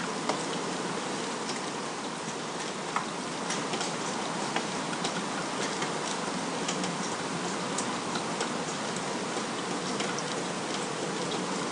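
Steady rain falling, with scattered sharp drops tapping irregularly on hard surfaces.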